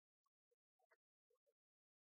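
Near silence, broken only by faint, scattered short blips.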